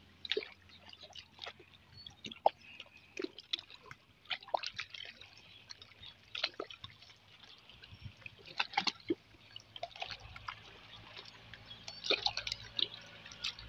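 Shore water lapping among rocks, with faint, irregular drips and small plinks and gurgles.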